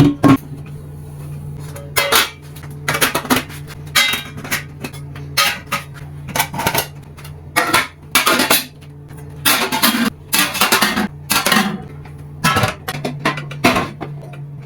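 Dishes, pots and cutlery clinking and clattering as they are handled, in a quick series of short knocks through the whole stretch.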